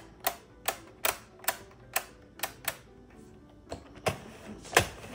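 Sharp plastic clicks from a 48-needle circular knitting machine, about two a second, with a pause a little past halfway and the loudest click near the end.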